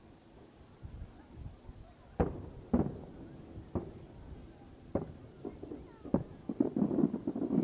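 Aerial firework shells booming at a distance: five separate booms starting about two seconds in, then a fast, dense run of booms and crackle near the end.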